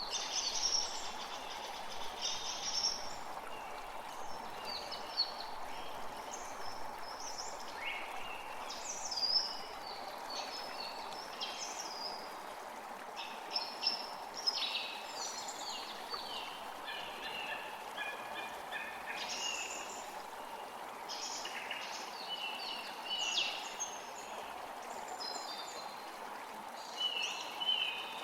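Songbirds chirping in many short, overlapping calls over the steady rush of a creek.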